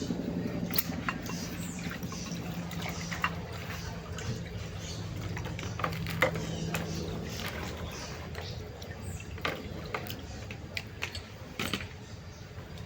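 Scattered sharp clicks and taps of tools being handled during repair work, over a low steady hum.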